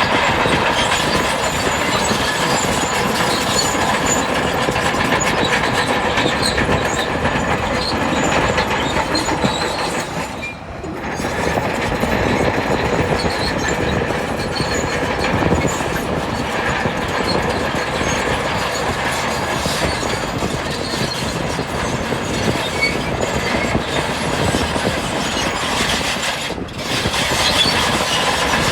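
Crawler bulldozer running under load, its steel tracks clanking with a steady squeal over a continuous mechanical din that dips briefly twice, about a third of the way in and near the end.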